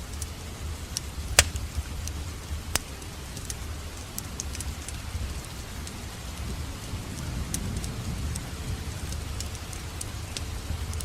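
Fire burning in a fireplace, crackling with scattered sharp pops over a low steady rumble of flame. Two louder pops come about one and a half and three seconds in.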